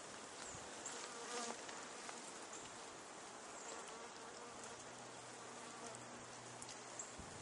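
Honey bees buzzing faintly around their opened hive, single bees' drones coming and going as they fly near. The colony is stirred up and defensive.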